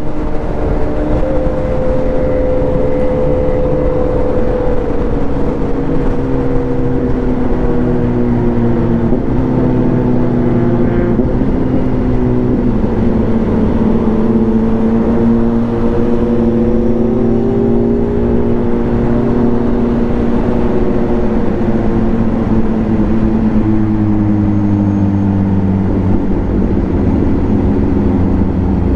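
Kawasaki Z H2 supercharged inline-four engine running under the rider while cruising and easing off, with wind and road noise rushing over the microphone. The engine note wavers and drops in pitch near the end as the bike slows down.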